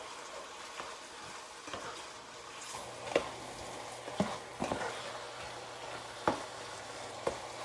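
A utensil stirring chicken, peppers, onions and pineapple in a pot, knocking against the pot about seven times over a faint, steady sizzle of the food cooking in its juices.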